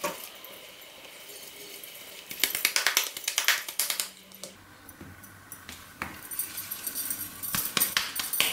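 Hands patting and pressing corn-flour dough into small flat rounds, in quick runs of soft taps with a light metallic jingle, likely bangles, about two and a half seconds in and again near the end.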